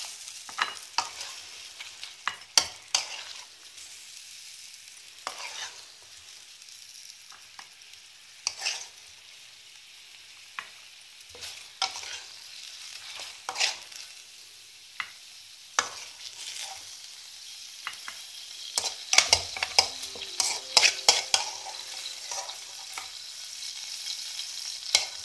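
Chicken pieces frying in hot oil in a kadhai, sizzling steadily, with repeated sharp clicks and scrapes of a utensil against the metal pan as the pieces are lifted out. A quick flurry of clicks comes about three-quarters of the way through.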